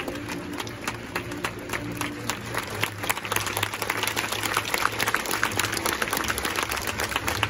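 Supporters applauding in a crowd, with one pair of hands clapping close up amid dense, irregular clapping.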